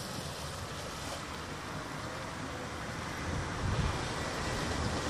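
Wind buffeting the microphone, with the distant hum and spray of a small radio-controlled Miss GEICO racing boat running fast across the pond. A stronger gust comes about three and a half seconds in.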